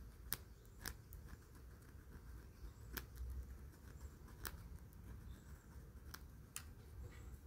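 Faint, sharp clicks, about six of them spread irregularly, from the small metal contact strips of a washing machine's motor switch being handled and fitted back by hand.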